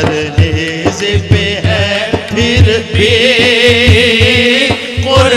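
Devotional naat singing in Urdu over a steady low beat, with a long held, wavering vocal note through the second half.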